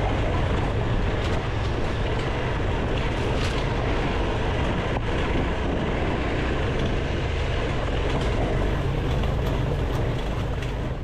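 KTM adventure motorcycle's twin-cylinder engine running steadily as the bike rides a rough, stony dirt track, with tyre noise and occasional sharp knocks from stones.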